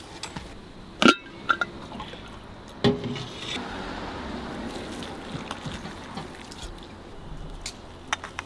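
Metal bowls and utensils knocking together with short metallic clinks, the loudest about a second in and near three seconds. Then hot broth pours steadily from a metal pot into a metal noodle bowl for several seconds.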